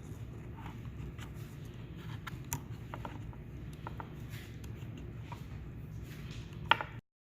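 Light clicks and taps of the plastic parts of a car door's soft-close latch mechanism being handled, over a low steady rumble, with one sharper click near the end. The sound then cuts off abruptly.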